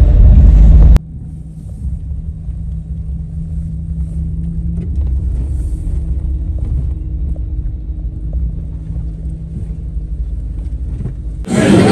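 Low, steady rumble of a car on the move, heard from inside the cabin, with a faint steady hum. It starts abruptly after a louder stretch about a second in, and louder noise cuts in near the end.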